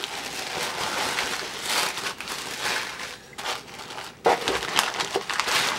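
Wrapping paper crinkling as hands unfold it, then louder, crackly rustling of plastic parts bags from about four seconds in.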